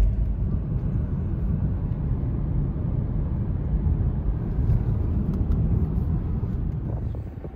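Car driving at road speed, heard from inside the cabin: a steady low rumble of tyre, road and engine noise.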